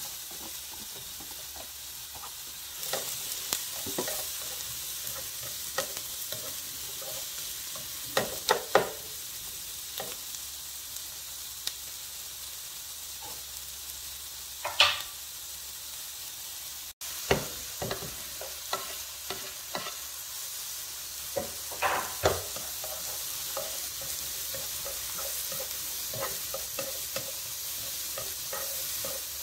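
Sliced mushrooms and diced onion sizzling in a nonstick skillet, with a steady hiss. A spatula scrapes and taps against the pan as they are stirred, giving scattered clicks and a few louder scrapes.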